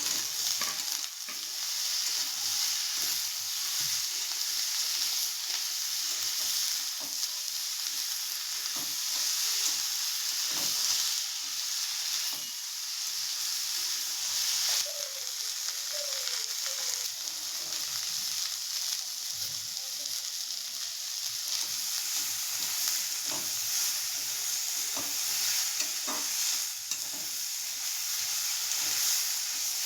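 Food frying in hot oil in a pan, sizzling steadily, with a spatula stirring and knocking against the pan many times.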